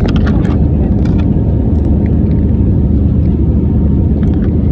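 Steady low rumble of a passenger airliner's cabin: engine and air noise heard from a seat inside the plane.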